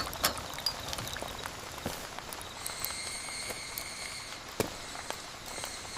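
Rain falling, with scattered drips tapping close by. A steady high-pitched trill comes in about two and a half seconds in and runs for about two seconds.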